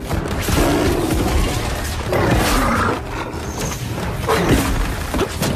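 Tigers roaring and growling, about three long roars that slide in pitch, over a steady low rumble.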